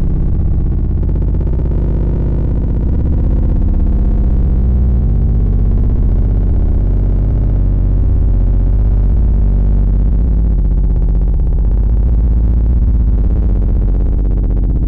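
Loud, steady synthesized deep bass for a subwoofer bass test, heaviest in the lowest notes, with little above the low midrange.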